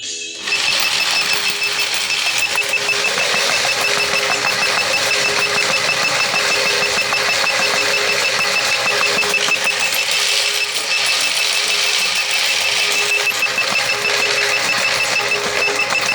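Vending machine's coin hopper paying out change: a steady motor whir with rapid, evenly spaced clicks as coins are pushed out, starting about half a second in.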